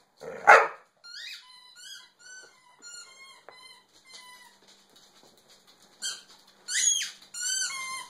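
A dog barks once, sharply, then gives a run of short high-pitched squeaks, one about every half second. Near the end it makes louder, longer whines that slide down in pitch.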